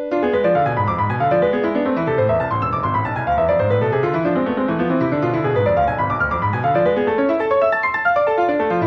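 Piano playing fast, rolling arpeggios that sweep up and down the keyboard in repeated waves.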